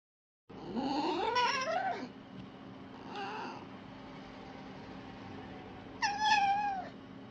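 Red fox giving high, cat-like whining calls: a long rising wail about a second in, a faint short call around three seconds, and a held call that drops in pitch near the end.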